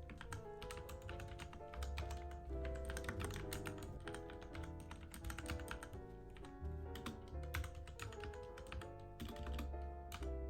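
Mechanical keyboard typing: quick, uneven bursts of key clicks over background music.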